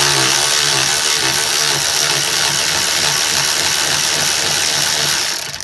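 Milwaukee cordless electric ratchet running continuously as it spins off the lower 17 mm nut of a front sway bar end link. It gives a steady whir with an even pulsing underneath and stops just before the end.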